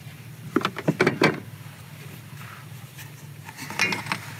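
A few light knocks and clicks about half a second to a second and a half in, and again near the end, over a steady low hum: hands handling parts at an ATV's air-filter boot and hose clamp.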